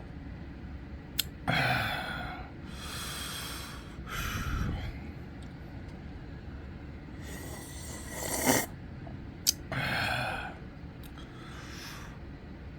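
A person's breathing while eating: several noisy breaths or gasps, each under a second, with two sharp mouth or utensil clicks.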